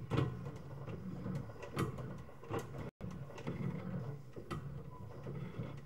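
Sewer inspection camera's push cable being fed down a drain line, with irregular clicks and knocks over a low steady hum. The sound drops out for an instant about halfway.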